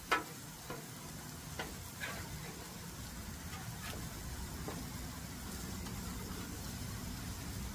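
Crab cakes sizzling on a flat-top griddle, with a metal spatula scraping and tapping on the griddle a handful of times as they are lifted and turned; the loudest scrape comes at the very start.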